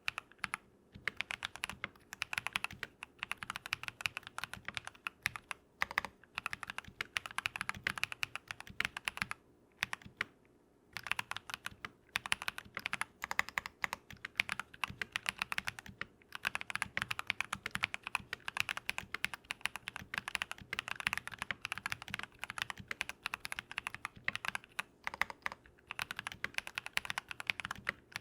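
Fast continuous typing on a Keychron V1 mechanical keyboard with lubed Drop + Invyr Holy Panda tactile switches, dense keystroke clacks broken by brief pauses, the longest about ten seconds in.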